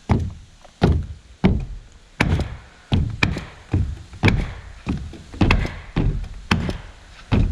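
Boots stomping on roof sheathing nailed to wooden trusses: a steady run of heavy, dull thuds, about one and a half a second. The stomping is a check for missed nails, where a sheet not nailed down to a truss shows up as a loose, bouncy spot.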